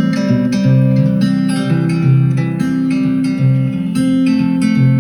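Acoustic guitar music played loud through a Bose S1 Pro+ portable PA speaker: a continuous run of picked and strummed notes, a new one about every half second, over full low bass notes.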